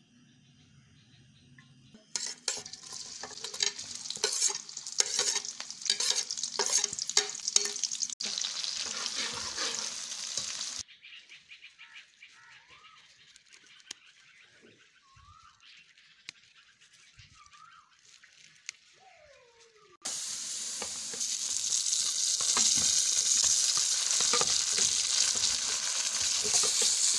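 Food frying in hot oil in a karahi, crackling and popping for several seconds, then a quieter stretch with a few faint chirps. About twenty seconds in, a loud, steady sizzle starts as raw chicken pieces go into the hot oil with the onions.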